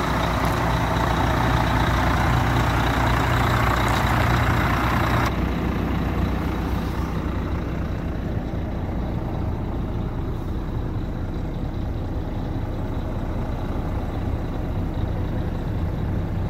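2006 Volvo FM400 truck's inline-six diesel engine idling steadily. About five seconds in the sound turns duller and quieter, heard from inside the cab.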